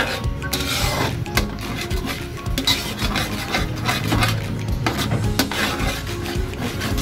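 Metal spatula scraping and stirring thick peanut sauce in a metal wok, a quick run of rasping scrapes against the pan.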